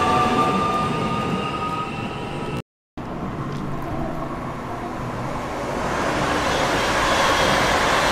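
A passing train at a station. First comes a whining tone that rises slightly in pitch. The sound cuts out briefly just under three seconds in, then the rumble of a train grows louder near the end.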